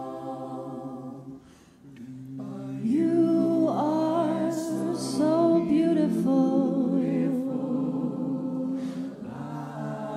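Mixed a cappella choir singing sustained backing chords, which fade briefly about 1.5 s in; about 3 s in a female soloist's lead voice enters over the harmonies and carries the melody to the end.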